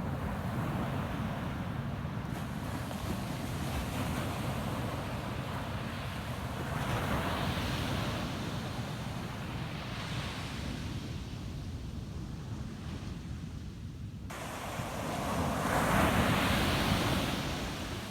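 Ocean waves breaking on a beach: a steady surf rumble with swells of wash about 7 and 10 seconds in and the loudest wave breaking near the end. Wind buffets the microphone underneath.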